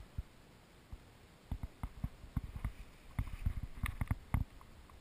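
Irregular soft thumps and knocks close to a body-worn action camera as the wearer moves and handles a shotgun, with a few sharper clicks near the end.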